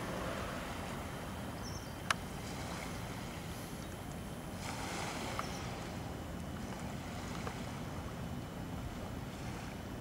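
Steady outdoor noise by the sea, a low rumble of wind and distant water, with one sharp click about two seconds in.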